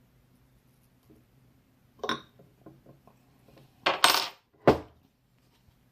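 Metal parts of a T15 paintball marker clinking and knocking against each other and a hard work surface during reassembly: a sharp clack about two seconds in with a few small clicks, then two louder clanks about half a second apart.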